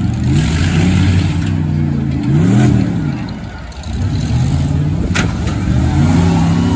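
Demolition derby car engines revving hard, pitch climbing and falling several times as the cars push and pull apart, easing off briefly a little before four seconds in, then winding up again. A single sharp knock comes about five seconds in.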